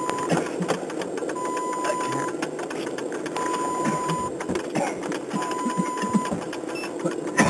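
Vehicle's electronic warning chime beeping: a steady tone about a second long, every two seconds, over a constant crackling, rattling noise.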